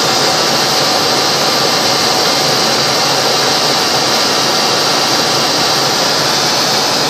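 Ford 5.4L Triton V8 running with a steady, loud, hissing whir, heard close over the open engine bay.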